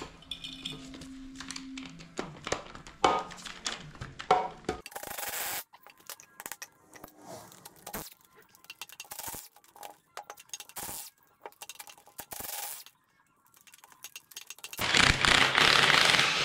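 Metal clinks, knocks and scrapes of tools and rusty shaft bolts as a BMW E36 drive shaft is unbolted from the differential flange, with a loud burst of noise lasting over a second near the end.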